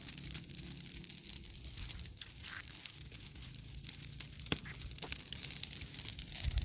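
Crackling and rustling from a bonfire of damp wood being lit: many small, irregular sharp crackles over a light hiss, with a few louder snaps.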